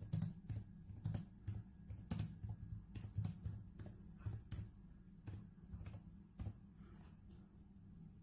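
Laptop keys being typed on: faint, irregular key clicks, about two a second, that stop about six and a half seconds in.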